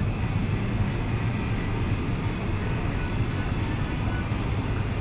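Steady low ambient rumble with a faint murmur above it, unbroken throughout.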